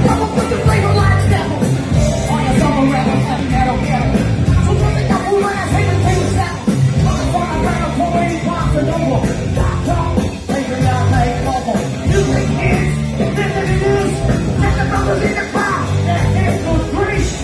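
Live rap-rock band playing loud through a PA, heard from the audience: a vocalist over a steady driving beat, with bass and electric guitar.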